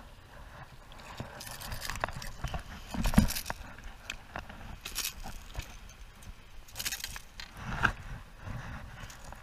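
A fish being reeled in and swung aboard a kayak: irregular splashes, rattles of tackle and knocks against the plastic hull, with the loudest thump about three seconds in.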